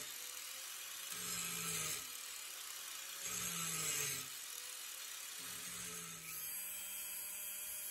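Angle grinder with a wide grinding wheel cutting into a steel blade blank, heard faintly, swelling three times as the wheel bites; the wide wheel makes the cut slow going.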